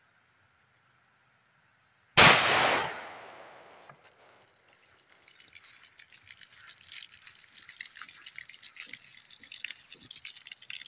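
A single 9mm pistol shot from a Rock Island Armory M1911A1 about two seconds in, sharp and loud, ringing out over about a second. From about halfway on, water splashes and drips out of the bullet holes in the shot water jugs, growing louder toward the end.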